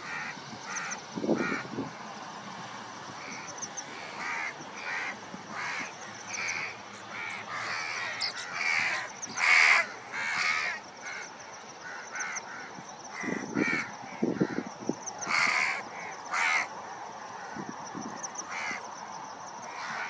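Birds calling: a long series of short, harsh, crow-like calls, loudest about nine to ten seconds in, over a steady high hum.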